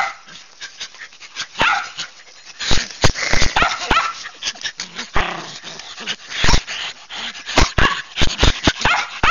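Shetland sheepdog and her puppies at play, giving short high yips and whimpers in scattered clusters. Many sharp knocks and bumps sound close to the microphone.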